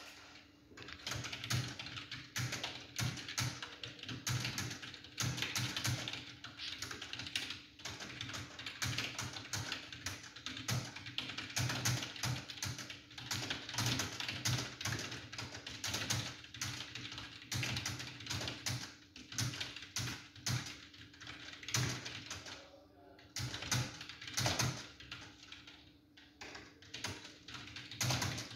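Fast, continuous typing on a computer keyboard: a steady stream of rapid keystrokes, with a brief pause about two-thirds of the way through. A steady low hum runs underneath.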